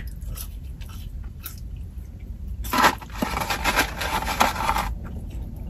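Close-up crunching of a crispy breaded fried-chicken burger (McDonald's McCrispy Legend) being bitten and chewed. There are faint crackles at first and a denser, louder crunch for about two seconds in the middle.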